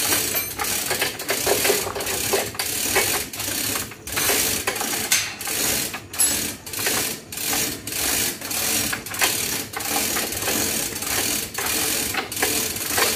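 A hand-pulled chain hoist ratcheting, its chain rattling in a steady rhythm of about two pulls a second, as a stack of loudspeaker cabinets is hoisted up a truss.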